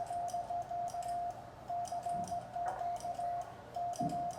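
Morse code (CW) sidetone: a single steady mid-pitched beep keyed on and off in dots and dashes, including fast runs of evenly spaced dits, sent on a semi-automatic mechanical bug key. The bug's lever and contacts click faintly with each element.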